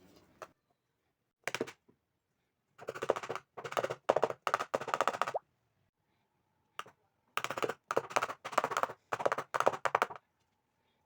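Plates of idli batter knocked down repeatedly on a hard surface to spread and level the batter: runs of quick, sharp rapping, a short run, then two longer runs of a couple of seconds each.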